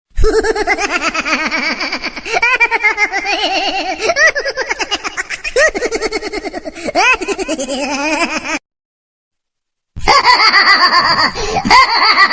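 Laughter sound effects: a long run of high-pitched, rapidly pulsing giggling that cuts off suddenly, then after a second or so of silence a second burst of laughter starts.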